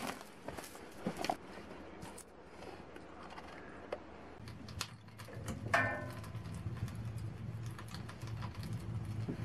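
Snow crunching with scattered clicks as a dog moves about and chews a toy. About halfway through this gives way to the low steady rumble of firewood burning in an open sauna stove firebox, with a short high squeak a little later.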